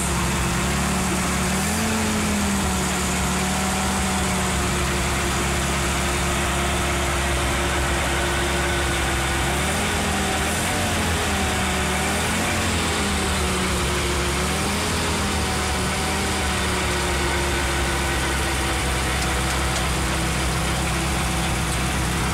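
The engine of a Navy Valentine Welder–converted Jeep CJ3A auxiliary power unit idling steadily, its speed wavering slightly a few times.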